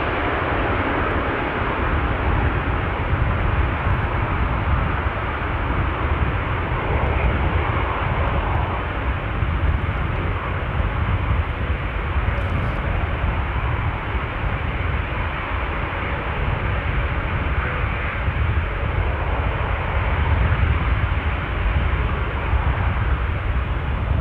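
Airbus A380's four jet engines at high thrust, a steady loud roar heard from behind as the airliner rolls away down the runway.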